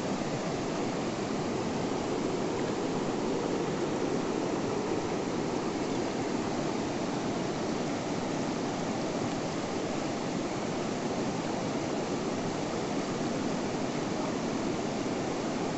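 River water flowing fast over a shallow, rocky riffle: a steady, even rush.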